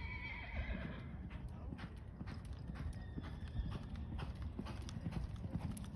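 Hoofbeats of a quarter horse loping on a dirt arena: a steady run of soft thuds and clicks.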